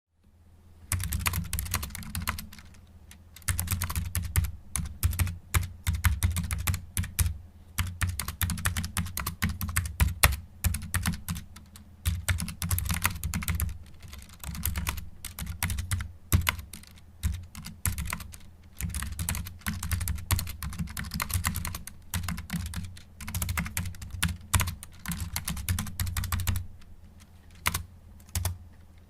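Typing on a computer keyboard: rapid runs of key clicks in bursts of a few seconds, broken by short pauses.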